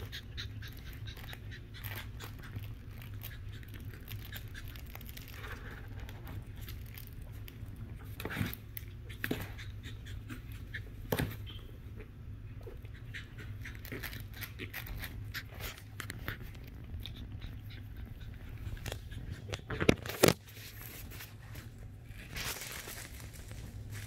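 Two Shih Tzu puppies play-fighting, scuffling and pawing on puppy pads and a fleece bed: scattered light taps and knocks, with two louder thumps about 20 seconds in.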